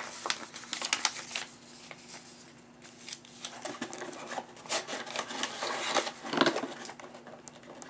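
Hands handling and rubbing a wand box on a table: clusters of scrapes, rustles and small knocks, busiest in the first second and a half and again from about three and a half to six and a half seconds in, over a faint steady hum.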